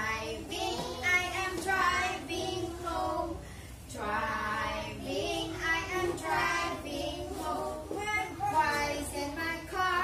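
A class of young children singing an action song together, with a woman's voice singing along and leading them, phrase after phrase with short pauses between lines.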